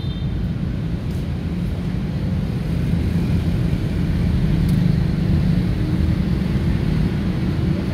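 Steady low rumble of motor traffic, swelling a little around the middle.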